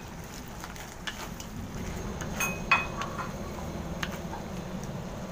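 Wooden spatula stirring ground pork and diced carrots in a pan, with a few scrapes, knocks and clinks against the pan, the loudest a little under three seconds in, over a low steady hum.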